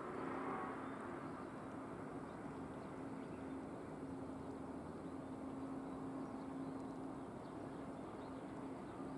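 Harbour ambience: a steady engine hum over an even rushing noise.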